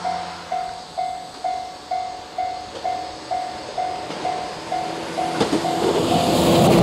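Japanese railway level-crossing warning bell ringing, an electronic clang repeating about twice a second, with a lower-pitched ringing joining in about two-thirds of the way through. Near the end the rumble of an approaching train swells up under the bell.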